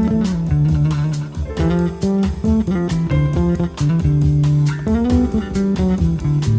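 Background music with plucked guitar, a bass guitar line and a steady beat.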